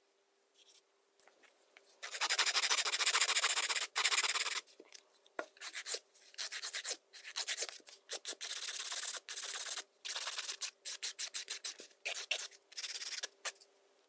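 Nail file scraping back and forth over a hardened white acrylic nail tip to smooth and shape it. First a few seconds of steady filing, then a run of short strokes with brief pauses.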